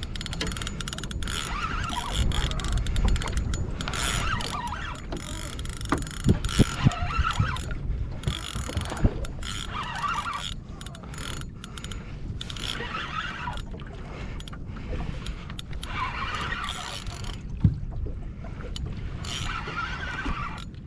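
Fishing reel being cranked in spurts as a shark on the line is wound in toward the boat, with several sharp knocks along the way over a steady low rumble.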